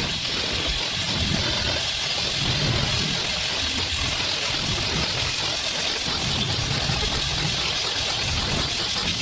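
Gas-welding torch flame hissing steadily, over a low uneven rumble like an engine running nearby.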